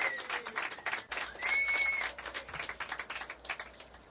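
A group applauding, with one short whistle about one and a half seconds in; the clapping thins out and fades away near the end.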